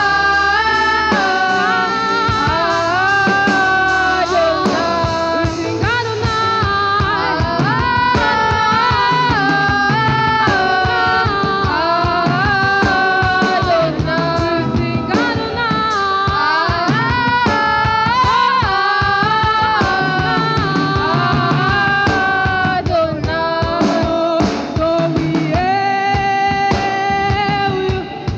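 Live worship music: singing with long held notes over a band with drums.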